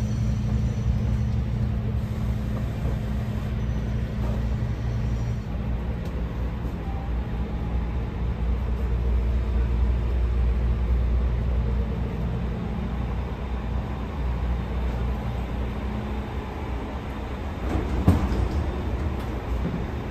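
Steady low hum and rumble inside a railway passenger coach of the SL Hitoyoshi steam train, with a single knock near the end.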